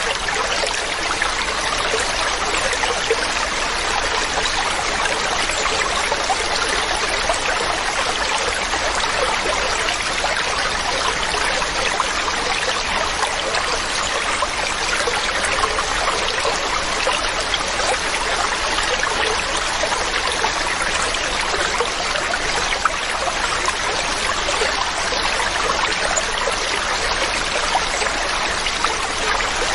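Waterfall: water rushing and splashing in a steady, even wash of sound.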